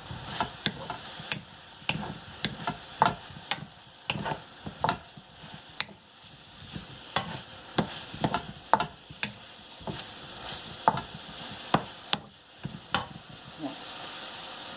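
A wooden spatula stirring chunks of squash and meat in a stainless steel wok, knocking and scraping against the metal in quick, irregular strokes over a steady sizzle of frying. The stirring stops near the end, leaving only the sizzle.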